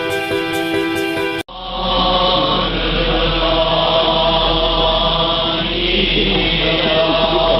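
Background music that cuts off abruptly about one and a half seconds in, giving way to steady Buddhist sutra chanting at a Japanese temple, with a low hum underneath.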